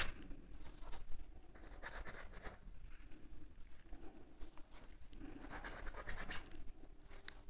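Faint scratchy brushing of a paintbrush against canvas as paint is dabbed on in a few short strokes.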